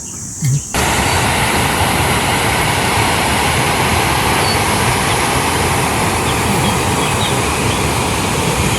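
Loud, steady rushing noise that cuts in abruptly about a second in and holds level throughout.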